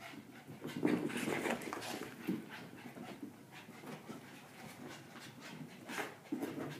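Small dogs panting hard while playing chase, in quick uneven breaths that are busiest in the first couple of seconds.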